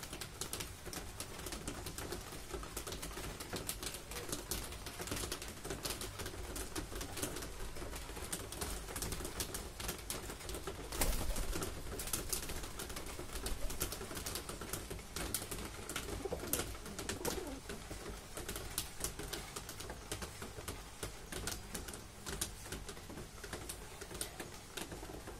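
Rock pigeons cooing while they feed, with many small clicks and taps of beaks pecking food off a hard tiled floor.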